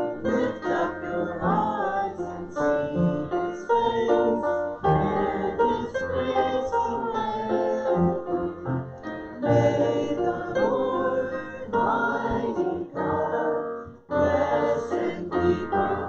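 A worship song: singing with piano or keyboard accompaniment.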